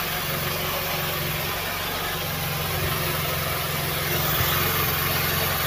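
Rossi Rapid 150 scooter engine idling steadily on a newly fitted Sudco 26 mm Keihin carburettor while its idle is being set.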